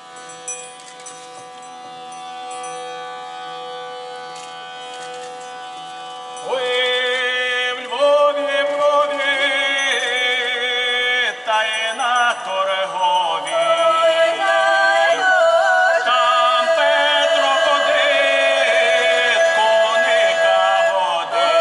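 A steady held note sounds for about six seconds, then a group of folk singers comes in loudly with a Ukrainian Christmas carol (koliadka), sung in several parts with vibrato.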